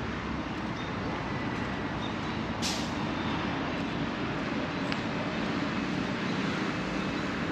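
Steady traffic noise, with one short, sharp hiss a little under three seconds in.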